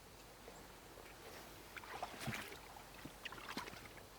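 Faint creek water with light sloshing and a few small clicks and knocks in the second half.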